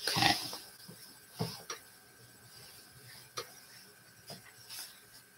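A short scrape right at the start, then scattered light taps and clicks of painting tools being handled at the easel.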